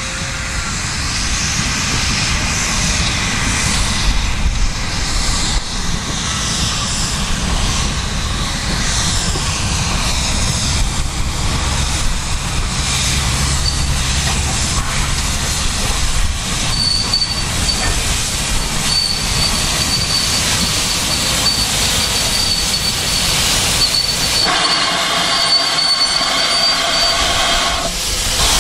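GWR Saint-class 4-6-0 steam locomotive No. 2999 'Lady of Legend' hauling a train of coaches slowly past, with a steady rumble of wheels and running gear. A thin, high wheel squeal runs for several seconds past the middle, and a louder pitched tone is heard in the last few seconds.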